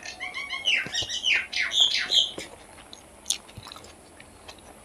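A bird chirping in a quick run of short squawky calls during the first two and a half seconds, over the soft clicks and smacks of chewing, which carry on more quietly after the calls stop.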